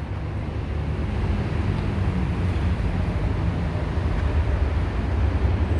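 Steady low rumble of nearby road traffic, with an engine hum underneath.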